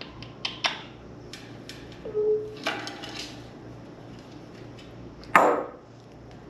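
A series of sharp clicks and knocks from an African grey parrot in its room, with a short low hooting note about two seconds in and a loud sharp rasp about five and a half seconds in.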